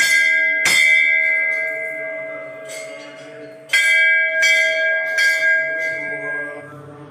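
Large hanging metal temple bell struck by hand with its clapper, a few strokes at a time, each one ringing on and fading. It is struck twice at the start, then three more times about four to five seconds in, and the ringing dies away near the end.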